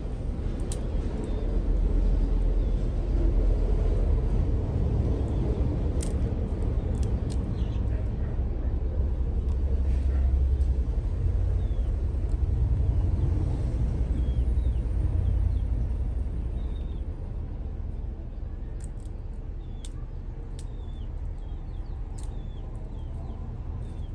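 Steady low rumble that eases off about two-thirds of the way through, with a few faint high chirps and soft clicks in the latter part.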